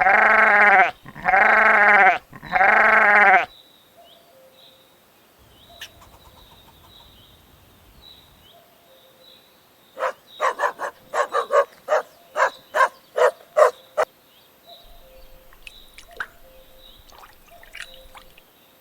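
Three loud bleats in quick succession, each about a second long. Several seconds later comes a quick run of about a dozen short, sharp calls, with faint high chirps in the background.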